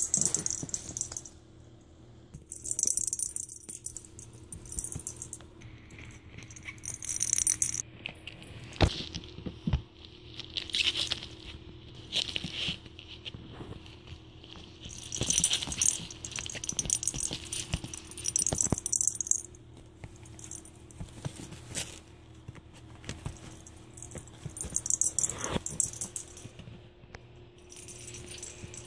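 Small bells jingling in repeated bursts as Persian kittens play, with a few sharp knocks in between and a faint steady hum underneath.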